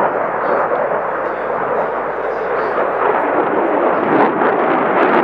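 Jet noise from an F-35A Lightning II's Pratt & Whitney F135 afterburning turbofan during a display pass: a loud, steady rushing rumble.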